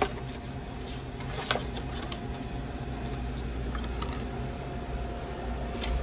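Scattered light clicks and crinkles of a clear plastic blister pack as a replacement defrost timer is taken out of it. Underneath is a steady mechanical hum.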